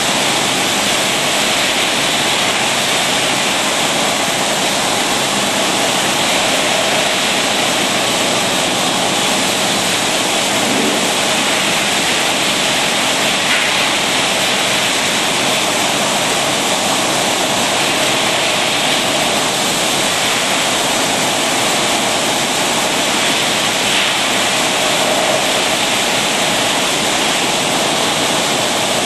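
Rotary bottle-filling machine running as it fills bottles of amber liquid, heard as a steady noise with no rhythm.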